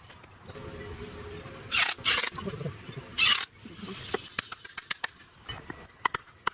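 Three short bursts of a cordless drill driving screws through a slotted steel angle strip into a wooden frame. From about four seconds in, a run of light knocks and clicks as a hammer works on the frame.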